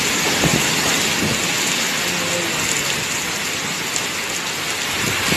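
Heavy hurricane rain pouring down steadily, a dense even hiss with no let-up.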